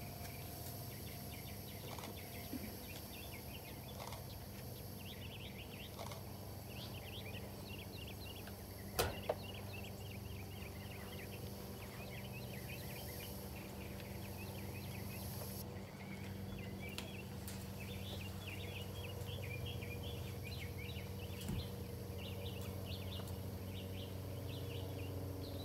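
Outdoor ambience: a steady low hum under many faint, high, rapid chirps that come in clusters. A sharp double click about nine seconds in.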